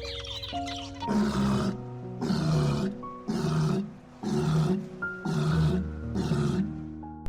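An animal giving six low calls in a row, about one a second, over background music.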